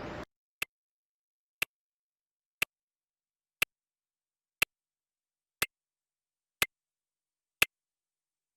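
Clock ticking over silence, one sharp tick every second, evenly spaced. A rushing background noise cuts off just at the start.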